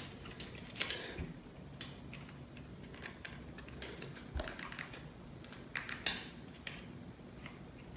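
Faint handling sounds: a few scattered light clicks and soft rustling as the parts of a ring light kit are handled.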